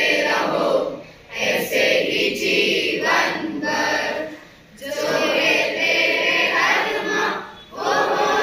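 A group of school students singing together in unison, in phrases of about three seconds with short breaks between them.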